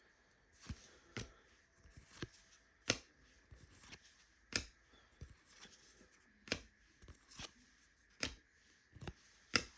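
Trading cards flicked one at a time off a stack of cards, each making a short, sharp click, about one a second at an uneven pace.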